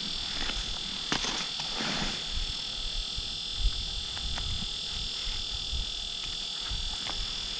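A steady high-pitched hiss with a few faint, soft ticks and rustles.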